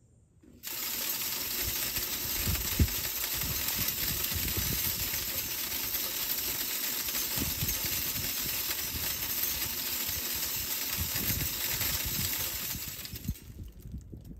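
Tripod game feeder going off: its spinner throws corn out onto the ground in a dense, steady hiss of scattering kernels. It starts abruptly about half a second in, runs for about twelve seconds and fades out near the end.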